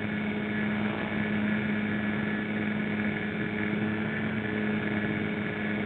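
Telemaster RC model airplane's motor and propeller running steadily at full power in a climb, a droning buzz with a rush of air noise, starting and cutting off abruptly.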